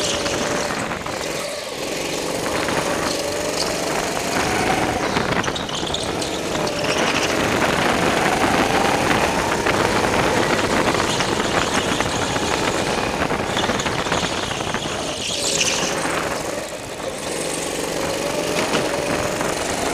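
Go-kart engine heard onboard, its pitch rising and falling as the kart speeds up along the straights and eases off for corners, with a steady hiss over it. It drops off briefly twice, about a second and a half in and again near the end.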